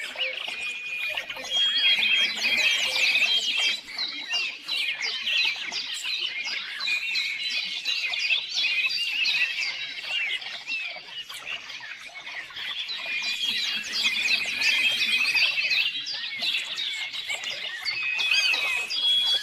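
Songbirds singing: a dense, continuous mix of quick chirps and trills, with some short held whistled notes.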